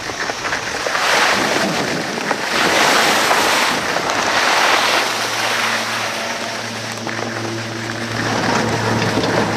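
Skis sliding and scraping over groomed snow, the noise swelling and easing, mixed with wind rushing over the microphone. From about halfway through, a steady low hum joins in underneath.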